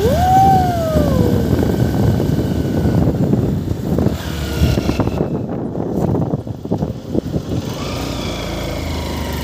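Motorcycle engine running with road and wind noise while riding. In the first second and a half a single tone rises and then slowly falls.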